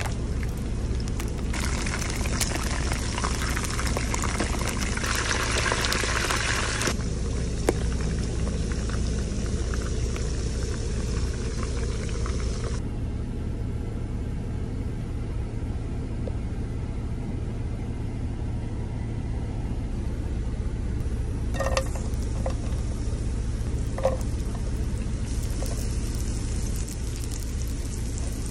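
Hot oil sizzling as chicken feet deep-fry, over a steady low rumble. The sizzle is strongest for the first several seconds and dies away about halfway through. Two light knocks come in the quieter middle, and the sizzle returns near the end as chopped onion, garlic and chilies fry in a pan.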